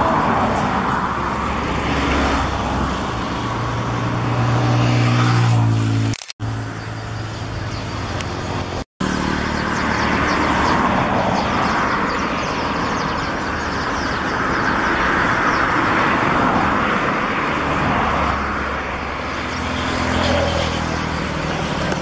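Steady engine-like noise, as of a motor vehicle running, with a low hum that swells twice. The sound cuts out abruptly twice, at about six and nine seconds.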